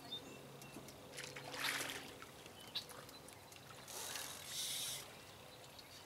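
Water splashing in two brief bursts, about a second in and again around four seconds in, as a hooked fish thrashes at the surface by the bank while it is being brought to the landing net.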